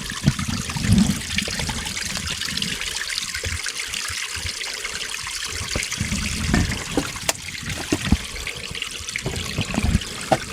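A small trickle of water running steadily, with occasional low thumps and a few sharp clicks over it.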